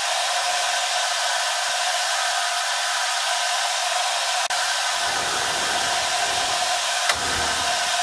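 Steady rushing air of a blower running in the shop, like a fan's whoosh. There is a brief break about four and a half seconds in, and a low rumble joins from about five seconds.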